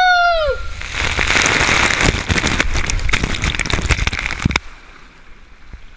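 Water rushing and spraying hard over the camera on a water slide: a loud, crackling splash that cuts off suddenly about four and a half seconds in. A rider's high shout trails off in the first half second.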